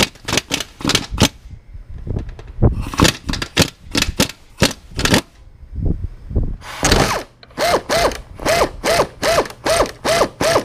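Pneumatic impact wrench hammering in several short bursts on the Honda Gold Wing's muffler mounting bolts, loosening them. Near the end an air ratchet runs in regular pulses about three a second.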